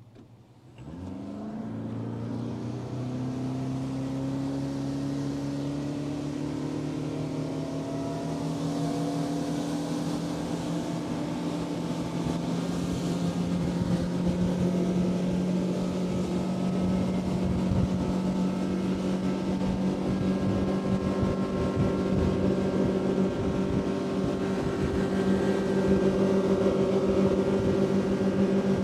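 Fishing boat's outboard motor throttling up hard about a second in, its pitch climbing over the next few seconds, then running steadily at high speed as the boat planes across the lake. Wind and water rush run underneath.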